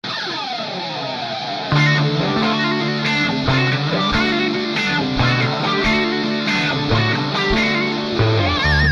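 Background rock music with electric guitar: a swelling opening chord, then a driving guitar riff over bass and drums that comes in about two seconds in.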